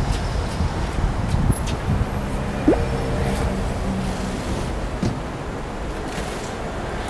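Steady vehicle engine and street traffic noise, with a few faint clicks and a short rising squeak about two and a half seconds in.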